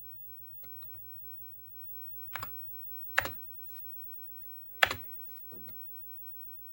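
Keys being pressed on an Amiga keyboard fitted with a soft flexible membrane: a few light taps, then four sharper separate keystrokes spaced about a second apart, over a low steady hum.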